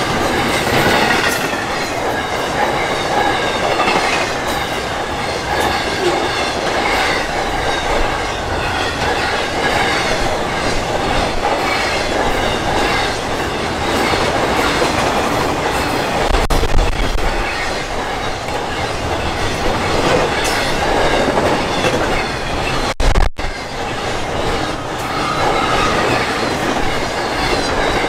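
BNSF train rolling past, its wheels running steadily on the rails with faint wavering squeal and scattered clacks. Wind gusts on the microphone add low rumbles partway through and near the end.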